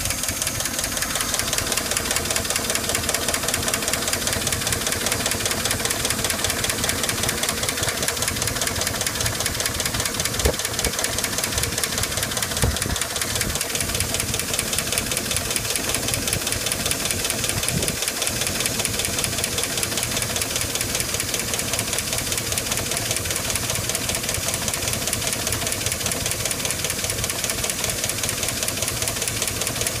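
1999 GMC Sierra's 5.3-litre V8 idling with its valve cover off, the exposed valvetrain giving a rapid, even ticking with a few louder clicks. It is the tick of a dead lifter that cleaning has not cured, on an engine with poor oil pressure.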